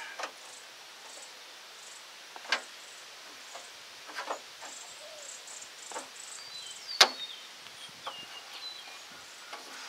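Scattered tool clicks and light metallic knocks from work on a pickup's transmission cooler line, with one loud, sharp metallic snap and brief ring about seven seconds in.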